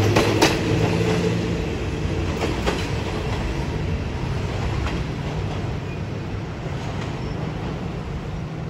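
Passenger train coaches rolling past on the track, the wheels clicking over rail joints a few times early on and again about two and a half seconds in. The rumble then slowly fades as the last coach moves away.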